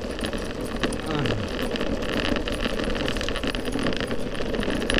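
Boosted Board electric skateboard rolling over a rough, debris-strewn asphalt path: a steady rolling road noise with scattered small ticks and rattles.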